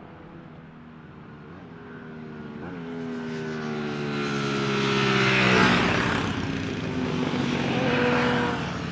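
Classic racing motorcycle on track, its engine note climbing as it accelerates toward the microphone and dropping in pitch as it passes about halfway through. It is loud again near the end.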